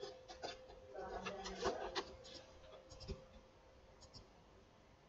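Faint computer mouse and keyboard clicks: a quick cluster in the first two seconds, then a few sharp double clicks, each a press and release, spaced about a second apart, over a faint steady hum.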